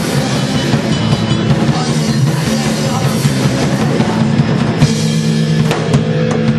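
Punk rock band playing live and loud: pounding drums with distorted electric guitar and bass.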